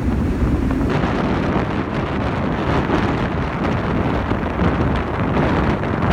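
Strong wind buffeting the microphone, a steady low rush with no pauses, the hiss growing a little brighter about a second in.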